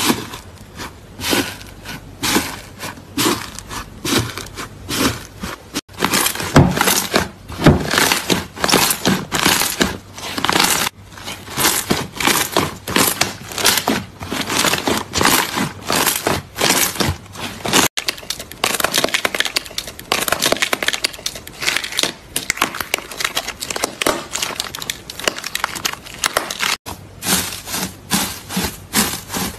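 Slime being pressed and squeezed by hand: dense crackling and popping with many sharp clicks, changing character at several cuts between clips. Near the end, gold foil over the slime crinkles as it is pressed.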